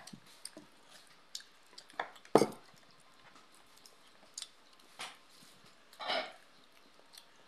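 Sparse mealtime noises from people eating with their hands at a table: a few light clicks, a sharp knock about two and a half seconds in, and two short breathy noises near the end.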